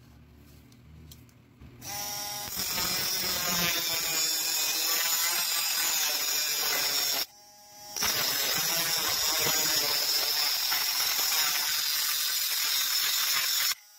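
Homemade mini grinder driven by a 12 V car power-window motor, its cutting disc grinding through a metal rod held in a vise. The motor whines up about two seconds in and the disc cuts for about five seconds, lifts off briefly around seven seconds leaving only the motor's whine, then cuts again until it stops just before the end.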